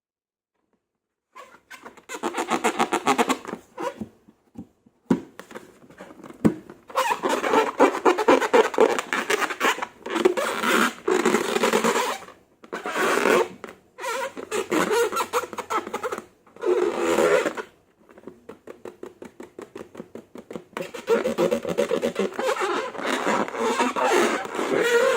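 Sticky slime being mixed and squished, a wet crackling made of rapid clicks and small pops, coming in bursts of a few seconds with short pauses between; it starts about a second and a half in.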